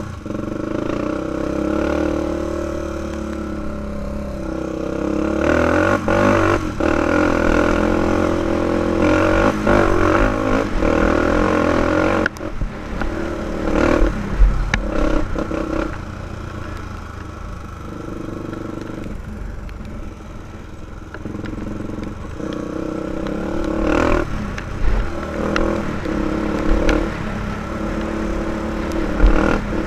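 2005 Honda 400EX ATV's single-cylinder four-stroke engine running under way on a dirt trail, its note rising and easing as the throttle is worked. Occasional sharp knocks and rattles from the quad riding over the rough ground.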